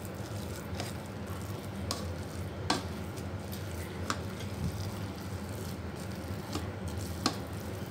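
Plastic rice paddle stirring soft cooked rice in a rice cooker's non-stick inner pot: a quiet soft scraping with a few short clicks as the paddle knocks against the pot, over a steady low hum.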